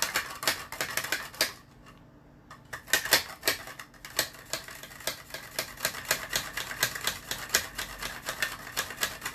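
A carrot being pushed back and forth across the blade of a Tupperware MandoChef handheld mandoline slicer. Each stroke makes a quick scraping click, in a fast even rhythm of about three or four strokes a second. The strokes pause briefly about two seconds in, then pick up again.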